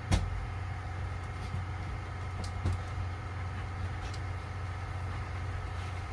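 A steady low mechanical hum like an idling engine or running machinery, with a sharp knock just after the start and a few light taps and clicks later on.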